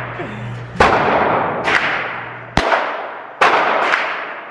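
Five gunshots at an indoor shooting range, a second or less apart, each with a long echoing decay off the range's walls and ceiling.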